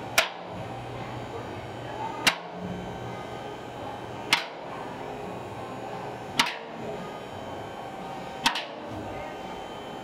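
A sharp knock or crack repeating evenly, about once every two seconds, five times, over a steady low hum.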